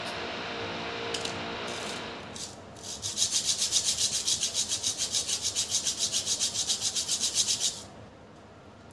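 A disc brake pad rubbed rapidly back and forth on sandpaper: a fast, even scraping of about eight strokes a second, starting about three seconds in and stopping abruptly near the end. The pad's friction face is being sanded to cure squeaky brakes.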